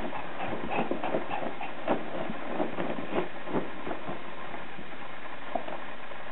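A Yorkshire terrier digging and pawing at a crumpled sheet on carpet: the fabric rustles and crinkles, with irregular scratches and scuffs several times a second.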